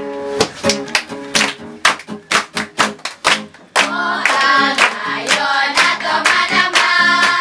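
A group of children clapping in time, about three claps a second, along with a song. About four seconds in their singing comes in much louder over the clapping.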